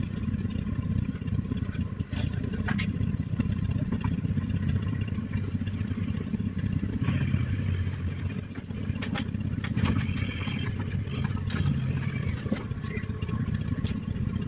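1955 John Deere 420C crawler's two-cylinder engine running steadily while the crawler moves, with some clatter from the machine.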